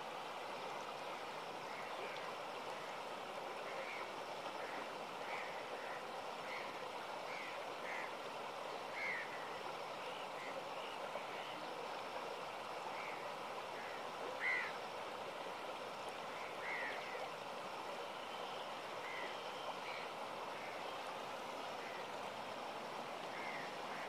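Shallow river water rushing steadily over rocks and riffles. Short calls from a small animal recur every second or so over it, the loudest about fourteen seconds in.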